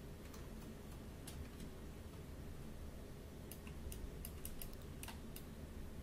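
Faint, irregular clicks of a computer mouse and keyboard, with a quick run of several clicks about four seconds in, over a low steady room hum.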